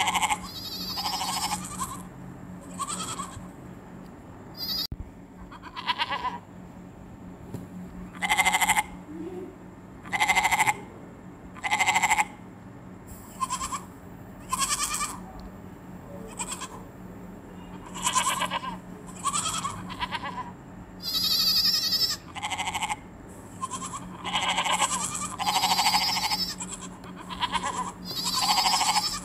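Goats bleating over and over, short calls coming every second or two, some in quick pairs.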